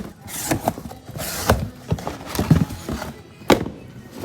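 Shipping boxes and their contents being handled and unpacked: rustling packing material and a series of irregular knocks and thumps, the sharpest about three and a half seconds in.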